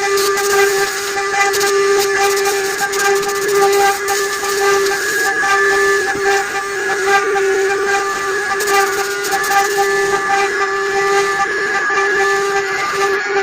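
CNC router spindle whining at a steady high pitch while its bit cuts wood, with a continuous hiss of cutting noise.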